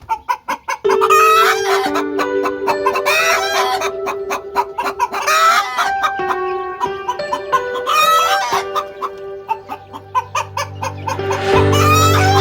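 Hen giving her egg-laying cackle: a run of loud rising squawks repeated about five times, each a second or two apart, which is the call a hen makes after laying an egg. Background music with held notes and a steady beat plays underneath.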